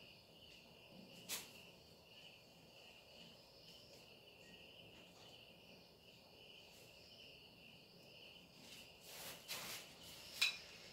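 Faint, steady chirping of crickets. A sharp click comes about a second in, and a few brief rustles and a louder click come near the end.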